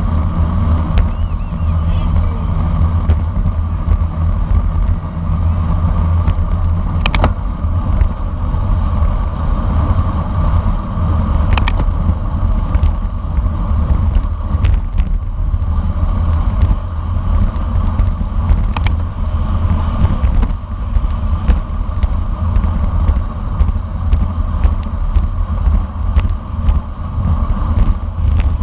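Steady wind rush and rumble on a bicycle-mounted camera's microphone while riding in a road race, with a few sharp clicks.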